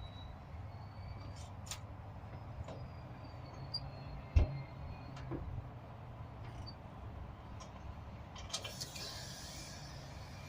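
Chevy Express 4.3 L V6 running with a steady low rumble and irregular light clicks, plus one sharp knock about four seconds in and a brief hiss near the end. The uploader puts the rattle down to a bad starter motor gear bumping against the flexplate.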